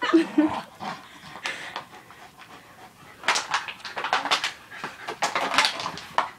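Dog panting rapidly and hard while tugging on a plastic soda bottle, the breaths growing louder and faster about three seconds in.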